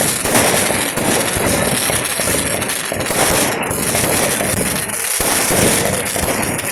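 Festival fireworks and firecrackers going off in a dense, unbroken barrage, bangs and crackles following one another too fast to count, at a steady loud level.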